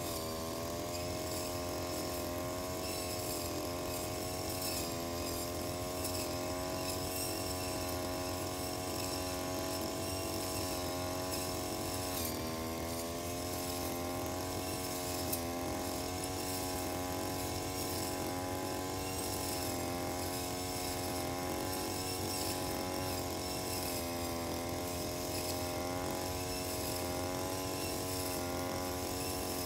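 Engine-driven brush cutter running at high speed while cutting grass. Its pitch wavers and sags as the engine takes load, most markedly about twelve seconds in.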